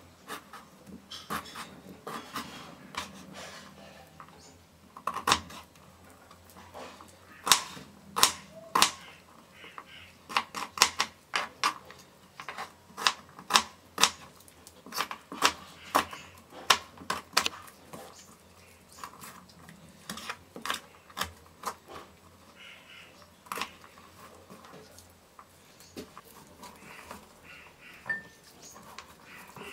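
Kitchen knife cutting and chopping beetroot on a cutting board: a run of sharp, irregular knocks of the blade striking the board, coming fastest through the middle. Near the end the knocks give way to softer scraping as the pieces are swept together.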